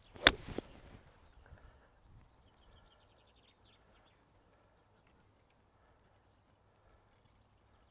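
A golf 7-iron striking the ball off the tee: one sharp, crisp impact with a brief ring after it.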